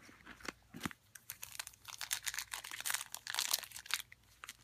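Foil wrapper of a Panini Score football card pack crinkling and tearing as it is opened by hand, a dense crackle that is heaviest in the middle.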